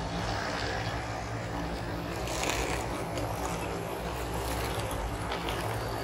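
HO scale model trains running past on the layout's track: a steady rumble of wheels on rails over a low motor hum.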